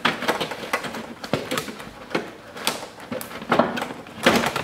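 Handling noises from a car side mirror being fitted to a door: scattered clicks, knocks and scraping of the mirror housing against the door as its studs are lined up with the mounting holes, with a few louder rustling bursts about three and a half and four seconds in.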